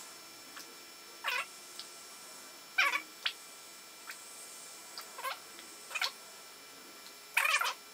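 An animal's short cries, repeated every second or two and loudest near the end.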